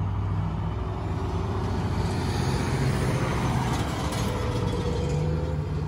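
Road traffic: a steady low engine hum, with a vehicle passing that swells and fades through the middle.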